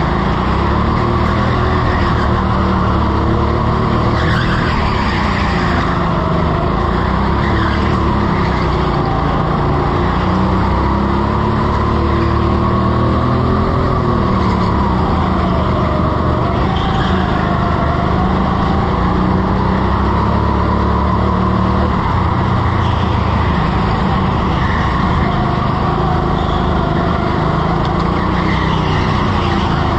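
Go-kart engine heard from on board through a fast lap, its pitch rising and falling as the kart accelerates and slows for corners, with a few brief tyre squeals.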